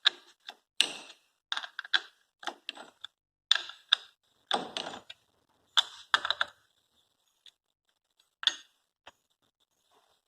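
Hand tools and screws clicking and clinking against the motorcycle's engine casing as screws are taken out, in irregular sharp taps that thin out after about seven seconds.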